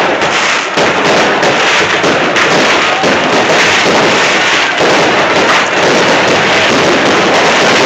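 Fireworks display going off: a dense, unbroken run of bangs and crackles from bursting shells.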